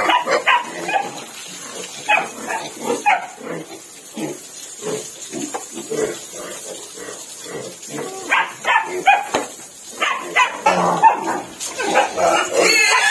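A dog barking again and again in short calls. Near the end a pig joins in.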